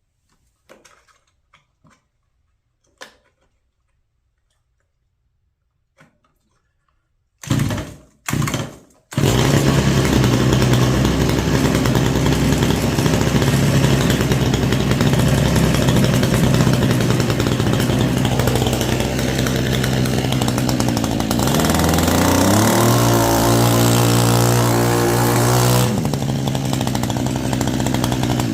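Small gasoline engine of a power sweeper being pull-started: two short bursts, then it catches about nine seconds in and runs steadily. About thirteen seconds later it speeds up to a higher, steady pitch and then cuts off near the end. It is running after a carburetor rebuild and new fuel lines and primer bulb.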